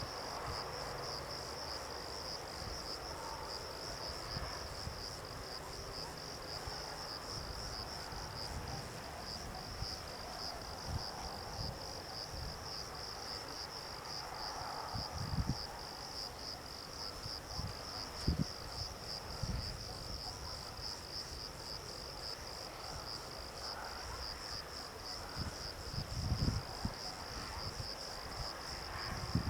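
Crickets chirping in a steady, fast-pulsing high trill, with a few soft low thumps now and then.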